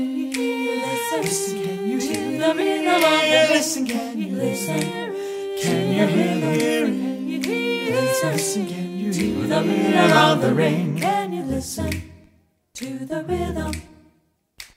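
A cappella vocal group of men and women singing wordless chords in close harmony, the voices holding and shifting notes together. About twelve seconds in, the held chords stop and give way to short, clipped vocal sounds with brief silences between them.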